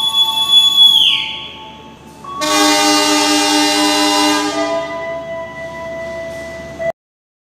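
A train guard's whistle blown in a steady high note that drops and dies away about a second in. After a short pause, a diesel locomotive horn sounds loud for about four and a half seconds as the departure signal, then cuts off abruptly.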